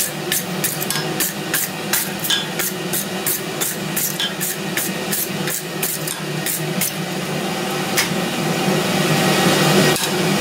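Hand wire brush scrubbed hard across red-hot steel tong jaws on an anvil, in quick rasping strokes about three a second, which stop about seven seconds in. A single click follows, with a steady low hum underneath.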